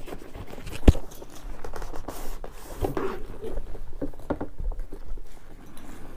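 Hands handling a cardboard product box and a fabric carry bag: rustling, scraping and scattered knocks, with one sharp knock about a second in.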